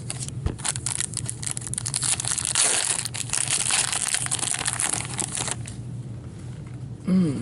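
Wrapper of an O-Pee-Chee hockey card pack crinkling and crackling as it is torn open and crumpled by hand, stopping about five and a half seconds in. A short voice sound near the end.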